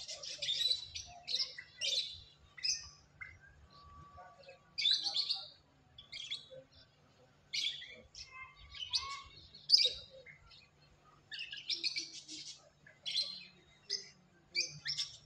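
Small birds chirping: short, bright, high calls coming irregularly about once a second, in several separate bursts.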